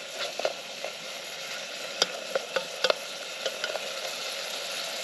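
Onions and blusher mushrooms frying in butter in a camping pot on a gas stove, with a steady sizzle. A wooden spoon stirring them clicks against the pot about ten times, most often in the first four seconds.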